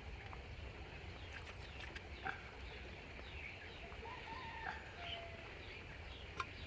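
Faint, scattered short bird calls and chirps over a steady low rumble.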